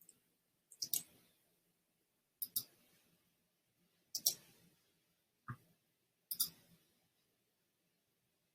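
Faint computer mouse clicks, mostly in quick pairs like double-clicks, about every two seconds, with one duller knock in between.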